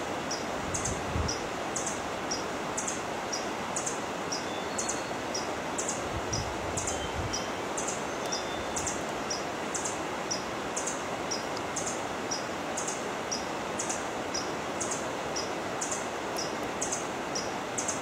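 Forest ambience: a steady rushing noise, with a short high chirp repeating about once a second and a fainter chirp between each.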